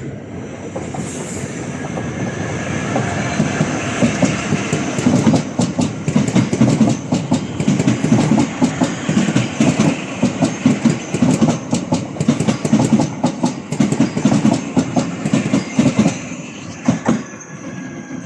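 A passing train rumbling, its wheels clattering in a quick run of clicks over rail joints and points. The sound builds over the first few seconds and fades near the end.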